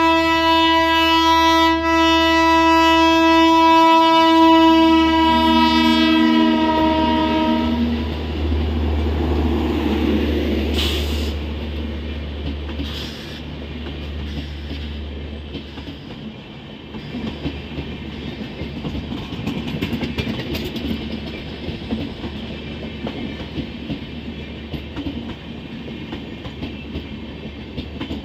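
Indian Railways locomotive sounding one long air-horn blast, with a second, lower tone joining just before it cuts off about seven seconds in. The passing train's heavy rumble follows, giving way to the clickety-clack of coach wheels over the rail joints.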